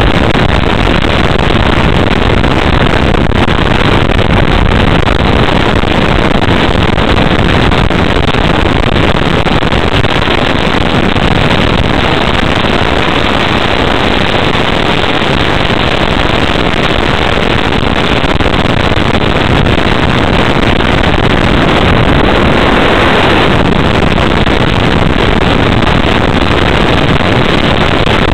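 Steady, loud rush of airflow and motor noise picked up by the onboard camera of a radio-controlled motor glider in flight.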